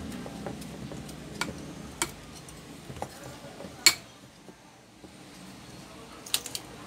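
Small clicks and knocks of an electric fan motor's stator and plastic housing being fitted together by hand, metal and plastic parts tapping against each other. A few scattered clicks, the loudest knock about four seconds in, and a quick cluster of clicks near the end.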